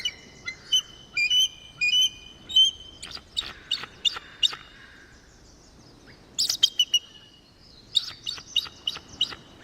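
Bald eagle calling: several bursts of high, thin, chirping whistles, each a quick run of short notes, with pauses between the bursts.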